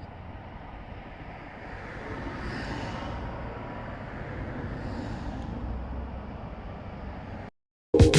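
Road traffic going by, a steady rush that swells twice as vehicles pass, about two and a half and five seconds in. It cuts off suddenly near the end, and loud music starts just after.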